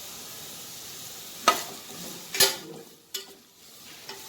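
Sliced vegetables sizzling in hot oil in a kadai, then the stirring utensil clacks sharply against the pan three times about halfway through as they are stirred.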